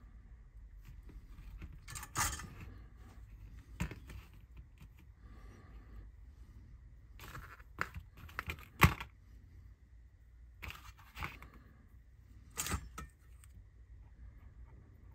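Scattered small clicks, taps and rustles of hands working with a soldering iron, thin wires and small motor parts on a workbench, with a few sharper taps. The loudest comes a little past halfway.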